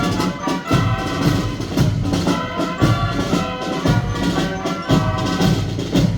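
Band music with sustained horn-like chords over a steady drum beat, about one bass-drum hit a second.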